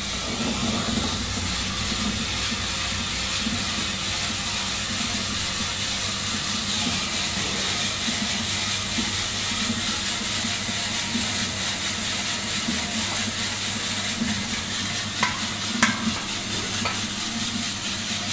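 Probat LP5 5 kg drum coffee roaster running: a steady rushing noise over a low hum, with a few short sharp clicks near the end.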